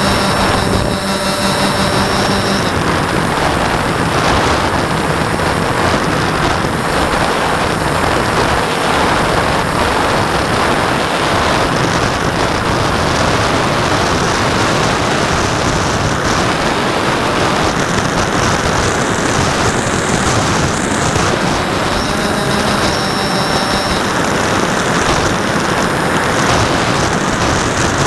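Steady rush of air over an onboard camera on a flying model Twin Otter, mixed with its twin motors and propellers running. A steady whine from the motors stands out for the first couple of seconds and again briefly about 23 seconds in.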